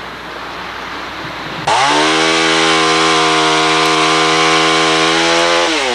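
Chainsaw revving up sharply a couple of seconds in, held at high speed for about four seconds, then dropping in pitch as the throttle is let off near the end.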